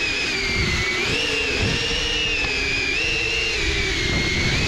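Small FPV quadcopter's motors giving a high whine whose pitch wavers up and down as the throttle changes, over a low rushing noise.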